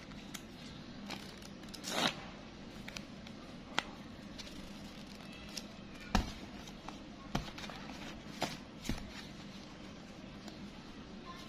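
Bundles of crisp new banknotes being handled: paper rustling and crinkling, with a handful of short, sharp taps as the bundles are moved and set down, the loudest about six seconds in and a longer rustle about two seconds in.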